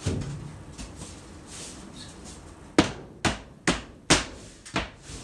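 Plywood panel being pushed and knocked up into place by hand: a soft bump at the start, then five sharp knocks in quick succession over about two seconds near the end.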